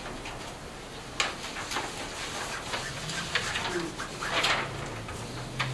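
Paper rustling as pages are handled and turned, in a few short bursts with a longer rustle in the second half. A faint low murmur comes in about halfway through.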